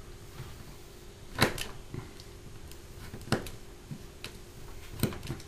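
Snap-off craft knife scoring soft plastic kit parts along a steel ruler: a few short, sharp scratchy clicks, the loudest three spread about two seconds apart, over a faint steady hum.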